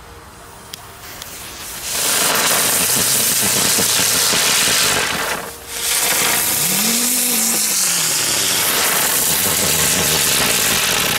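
WECO 'Dicker Brummer' ground spinners (hummers) whirling on the ground: a loud hissing rush with a buzzing hum that wavers up and down in pitch. One catches about two seconds in and burns out around five seconds. A second takes over right after and spins until near the end.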